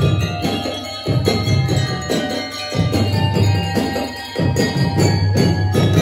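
Drum and lyre band playing: bell lyres ring a melody over dense, rhythmic drumming.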